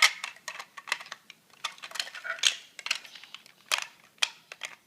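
Plastic Lego bricks clicking and clattering as they are handled and pressed together: an irregular run of sharp clicks, the loudest one right at the start.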